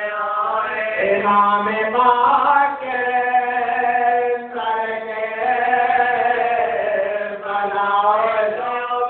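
A voice chanting a melodic recitation in long held notes, phrase after phrase.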